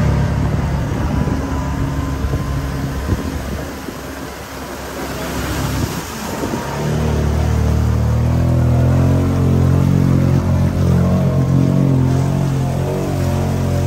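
Engine of a 2018 Kawasaki Teryx side-by-side working hard through deep mud, with mud and water splashing against the body. The engine note sags about four seconds in, then climbs back after about seven seconds and holds strong and steady.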